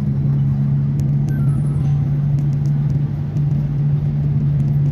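Engine and road noise of a road vehicle at cruising speed, heard from inside the cabin: a steady low hum over a rumble, with no change in pace.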